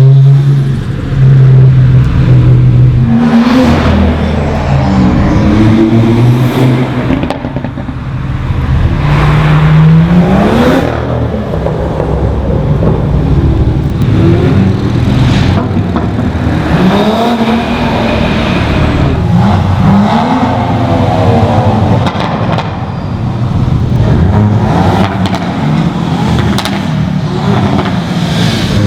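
Several cars pass one after another at speed, with engines revving up and down through gear changes and overlapping at times. The cars are tuned and modified sports cars lapping a race track.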